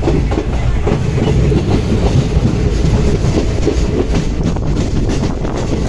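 Passenger train coach moving, heard from its open door: a steady rumble with the wheels clattering over the track.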